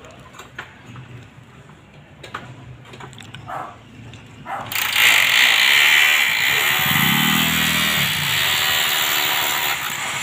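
A few faint knocks, then about halfway through a loud engine sound cuts in suddenly and keeps running, its low pitch rising and falling.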